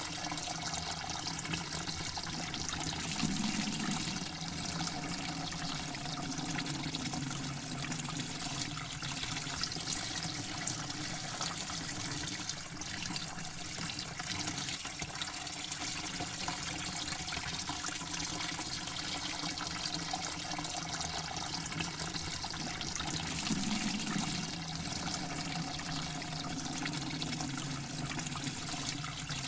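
Water running and trickling in a steady, continuous flow, swelling slightly louder twice.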